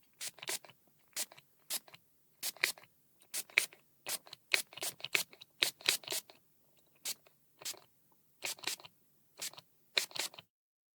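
A spray container making a quick, irregular run of short, sharp bursts, about two a second, some in close pairs.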